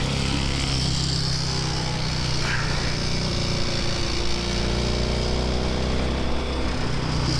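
Classic racing sidecar outfit's motorcycle engine running under way, its note shifting up and down with engine speed.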